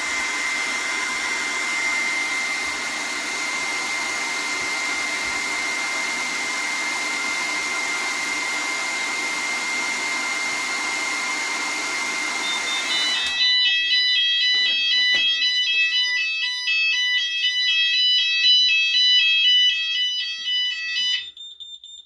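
Hairdryer blowing steadily with a thin whine, heating a fire alarm heat detector. About 13 seconds in the hairdryer stops and the Notifier ID2002 system's sounders go off with a fast warbling, stepping multi-tone alarm, the sign that the heat detector has tripped into fire alarm. The sounders are silenced about eight seconds later, leaving one steady high beep from the panel.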